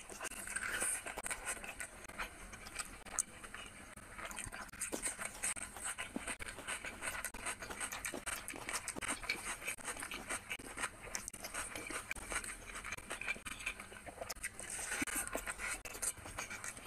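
Close-miked chewing and wet mouth noises of someone eating rice and chicken curry, with the squish of fingers mixing rice and curry on the plate, a steady stream of small wet clicks and crackles.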